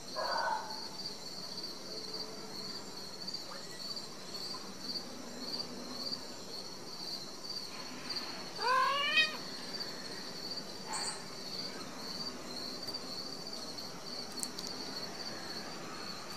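A Ragdoll cat gives a short rising meow about nine seconds in, after a brief call at the very start, over the steady pulsing chirps of crickets.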